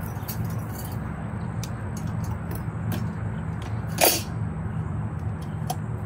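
Small garden items clicking and knocking against each other and the sides of a plastic storage tote as they are handled, with one louder knock about four seconds in, over a steady low hum.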